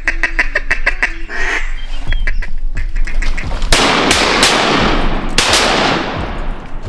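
Rapid duck quacking, a quick run of short calls, followed a little past halfway by several loud shotgun blasts in quick succession, the two biggest about a second and a half apart, each ringing out over open water.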